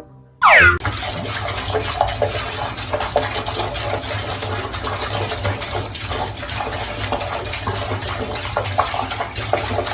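A cartoon boing sound effect about half a second in, then a steady rush of running water.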